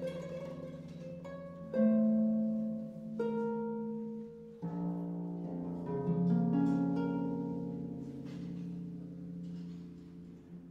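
Background instrumental music, slow and melodic, moving to a new held note every second or two and fading near the end.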